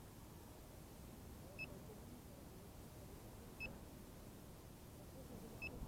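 Faint, short, high electronic beep repeating about every two seconds, over a low background hum.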